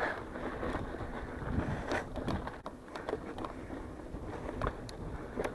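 Scott mountain bike rolling over a dirt trail: steady tyre rumble on the dirt with scattered clicks and rattles from the bike.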